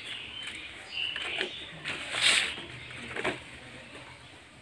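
Fresh banana leaves rustling and crackling as they are handled and torn apart by hand, with a brief louder tearing rustle about two seconds in.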